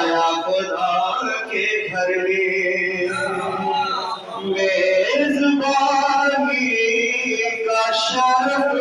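A man singing an Urdu qasida, a devotional poem, unaccompanied, in long melodic held lines.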